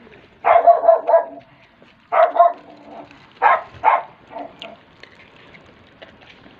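An animal calling in a run of short loud calls, about five in four seconds, then falling quiet.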